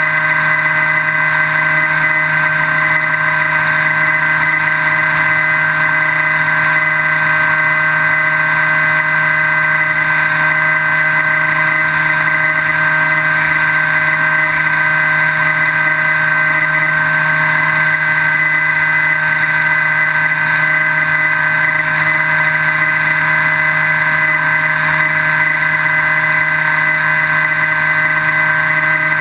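Electric motor and propeller of a Skywalker V3 FPV wing, heard from the camera mounted on the plane. It runs at a steady throttle in cruise, a constant whine with several steady tones that never change in pitch or level.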